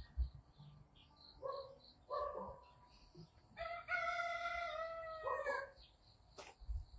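A rooster crowing: one long, held crow of about two seconds, starting about halfway through and dropping at the end, with a couple of shorter calls before it. Low thumps come just after the start and near the end.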